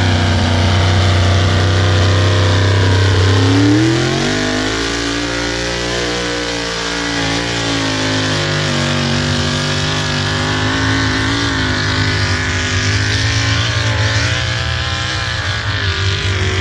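Pickup truck engine pulling a weight-transfer sled under heavy load. It runs steadily at first, revs up sharply about four seconds in, then holds at high revs as the truck drags the sled.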